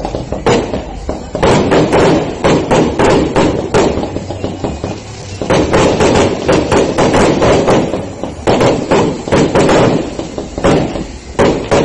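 Aerial fireworks exploding in a rapid, irregular series of sharp bangs and cracks, several a second, with a steady rumbling haze between them.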